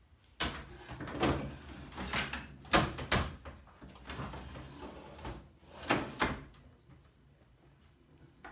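A drawer being set onto undermount drawer slides and run in and out on them: a series of knocks and clicks with sliding noise between them for about six seconds, then it stops.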